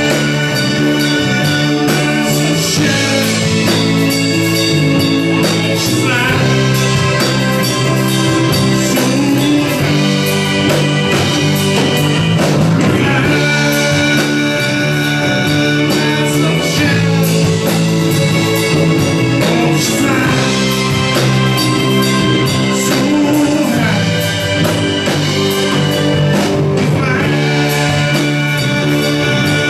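Live rock band playing loud, with electric guitar, drum kit and some singing.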